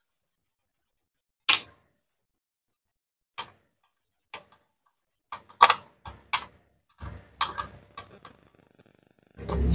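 Sharp, separate clicks and taps of a screwdriver against the plastic control-panel housing and circuit board of a Maspion digital fan as the board is unscrewed and pried loose. A few single clicks come first, then a quick cluster between about five and eight seconds in. Background music comes in near the end.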